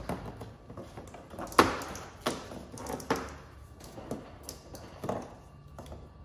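Hands working the frunk emergency release cable out through the tow-hook port of a Tesla Model 3's front bumper: a handful of knocks and taps with rubbing and rustling between, the loudest about a second and a half in.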